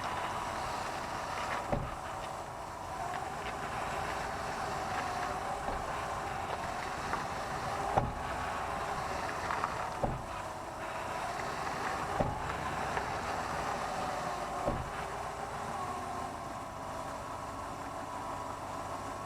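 Front axle of a 2005 Jeep Grand Cherokee WK giving five sharp pops, roughly two seconds apart, over the vehicle's steady running noise. This is front differential binding that happens only when cold, which the owner guesses is a worn differential bushing.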